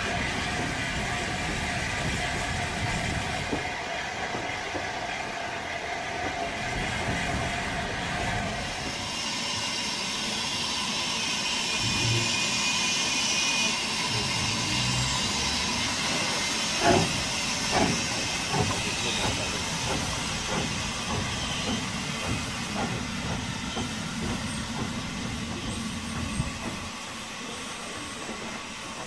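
Steam tank locomotive hissing steam as it moves off and runs away along the track, with a few sharp clanks about halfway through.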